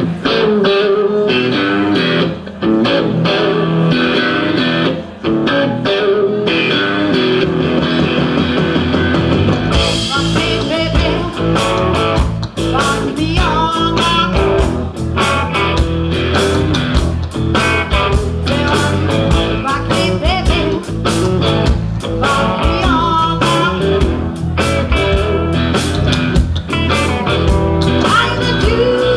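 Live country rock band playing: electric guitars and bass guitar with a woman singing lead. The band plays fuller and heavier from about ten seconds in.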